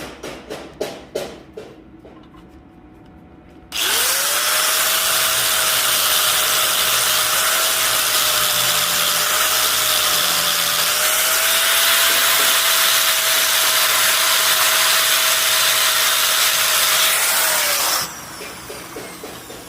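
A few sharp metal knocks, then an angle grinder spins up with a rising whine and grinds steel steadily for about fourteen seconds before winding down, the whine dropping as it stops.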